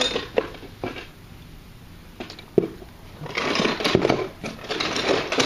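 Handling noise: a few light clicks and knocks, the sharpest about two and a half seconds in, then a busier stretch of rustling and small knocks in the second half, as toy pieces are handled and the camera is moved.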